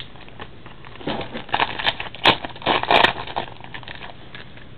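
Crinkling, crackling rustle of trading cards and their packaging being handled. It comes as an irregular cluster with a few sharp clicks, from about one to three and a half seconds in.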